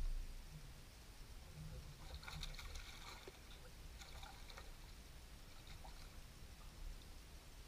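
Faint splashing and water disturbance as a hooked bass thrashes at the surface beside a boat and is grabbed by hand, in two short spells, about two seconds in and again around four seconds in, over a low steady rumble.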